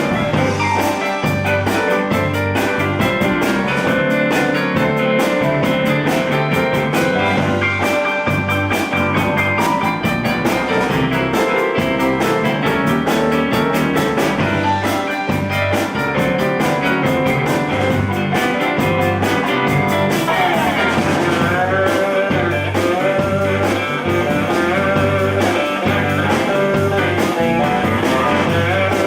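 Live blues band playing an instrumental passage: guitar lead over a steady, pulsing bass line and drums, with notes bending up and down about twenty seconds in.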